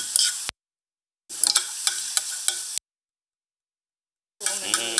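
Food sizzling in a pan, a steady hiss with scattered clicks and taps of utensils, heard in three short cuts broken by two gaps of dead silence.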